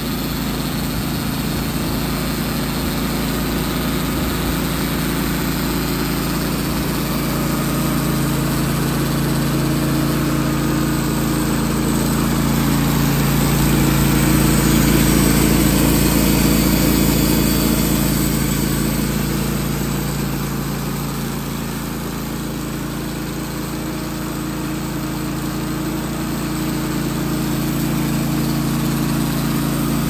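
Wood-Mizer LT15 Wide portable band sawmill running steadily under load as its band blade saws through a pine cant. The sound swells about halfway through, eases off a few seconds later, then rises again.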